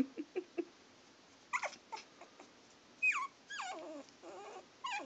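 Young miniature schnauzer puppies whimpering and squealing: a handful of short, high cries, most of them falling in pitch, starting about one and a half seconds in.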